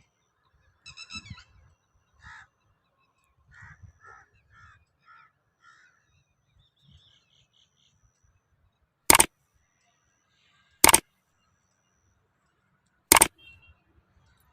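Birds calling in short repeated calls, crow-like caws among them, then three loud sharp knocks, each a second or two apart.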